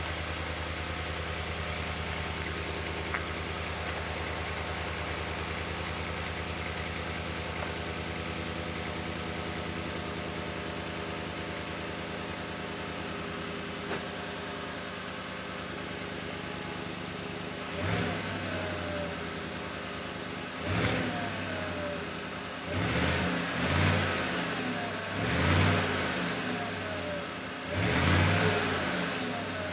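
Chevrolet Silverado's 5.3-litre V8 through a factory performance cat-back single-exit exhaust, idling steadily, then blipped about six times in quick succession during the last twelve seconds, each rev rising and falling back to idle.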